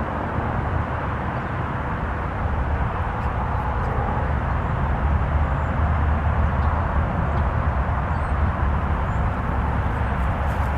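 Steady road traffic noise with a low rumble. No siren tone is heard.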